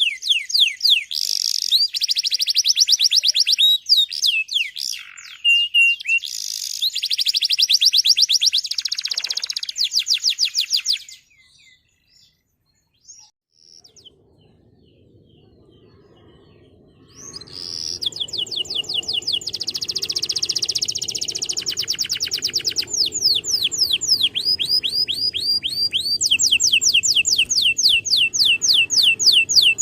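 Male domestic canary singing: fast trills and rolls of rapidly repeated high notes. The song breaks off about 11 seconds in and resumes about 6 seconds later over a faint hiss.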